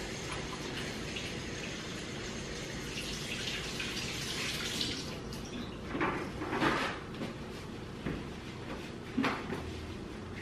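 Kitchen faucet running into the sink while hands are washed. About six seconds in, paper towels are pulled from a roll and rubbed over the hands, giving a few short rustling bursts.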